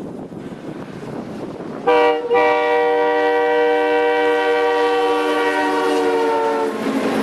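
An FP9 diesel locomotive's multi-tone air horn sounds a short blast, then a long steady blast of about four and a half seconds, over the rumble of the passing train. The horn stops near the end and the train's rumble grows louder.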